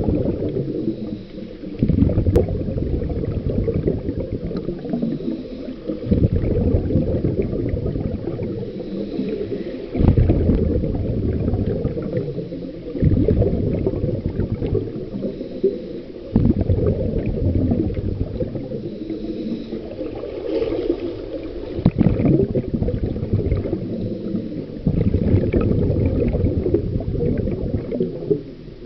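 Scuba breathing heard underwater: a low, bubbling rumble from a regulator, with a fresh gush of exhaled bubbles every four to six seconds.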